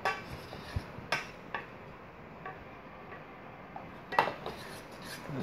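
Wooden spoon knocking and scraping against a stainless steel saucepan while stirring butter and flour into a roux: a handful of sharp taps at irregular intervals, the loudest about four seconds in.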